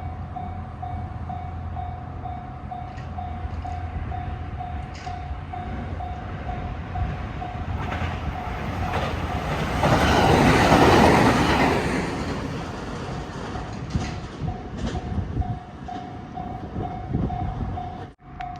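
Japanese level crossing warning bell ringing in a steady repeating beat, about two rings a second, while a train passes through the crossing, its running noise swelling to loudest about ten seconds in and then fading.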